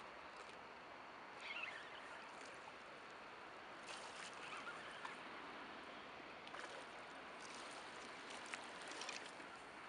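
Faint, steady outdoor water ambience along a rocky shore, the sea lapping and flowing, with a few light clicks and brief faint high chirps.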